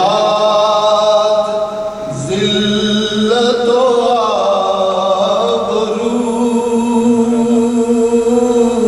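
A man reciting an Urdu naat, a devotional poem in praise of the Prophet, sung unaccompanied into a microphone. A short phrase is followed about two seconds in by a long phrase of drawn-out, held notes.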